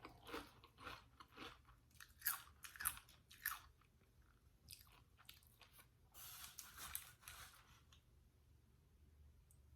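A person chewing crunchy food close to the microphone: a run of crisp, irregular crunches and mouth sounds that stop about eight seconds in.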